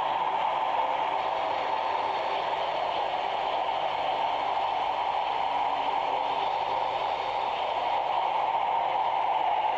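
Steady hiss and noise from an old, worn video recording, with no clear music, footsteps or other distinct sounds standing out.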